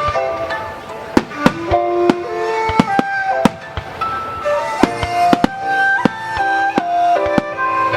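Aerial firework shells bursting in many sharp, irregular bangs over music with a slow, sustained melody.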